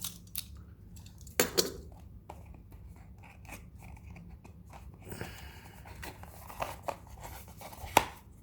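Small product box and its packaging being opened and handled by hand: scattered clicks, crinkling and tearing, with a sharp snap about a second and a half in and another near the end.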